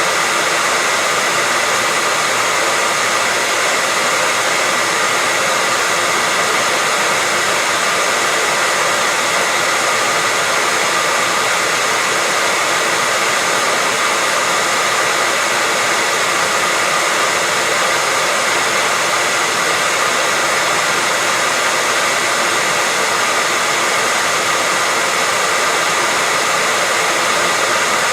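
Hair dryer running steadily, a constant airy hiss with a faint high motor whine.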